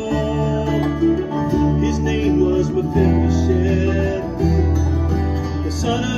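Bluegrass band playing an instrumental passage: banjo and strummed acoustic guitars over a bass guitar holding low notes that change about once a second.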